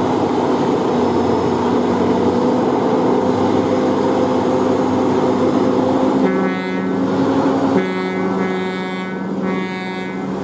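Heavy Scania truck's diesel engine running steadily under load while hauling a crawler crane on a lowboy trailer. From about six seconds in, a multi-tone horn sounds three long blasts, with a fourth beginning at the end.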